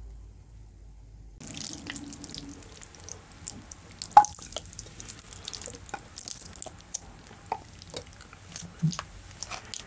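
Close-miked eating of ramyeon noodles and tteokbokki: wet chewing, slurping and mouth clicks, with one sharp click about four seconds in. Only a low hum comes before the eating starts, about a second and a half in.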